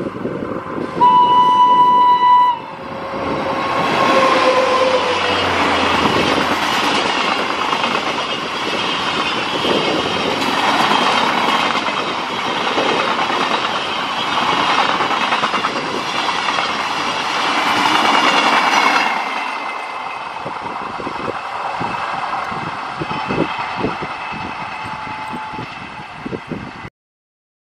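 WAP-7 electric locomotive sounds its horn about a second in: a loud, steady chord lasting about a second and a half, then a shorter note that falls in pitch as it passes. Its train of passenger coaches then rushes by with heavy wheel and rail noise, which thins after about nineteen seconds to a receding clickety-clack of wheels and cuts off abruptly near the end.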